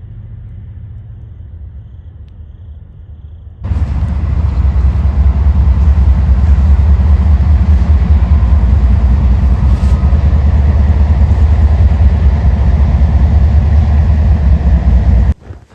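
Train rumbling past: a low rumble at first, which jumps suddenly to a loud, heavy rumble about four seconds in and stops abruptly just before the end.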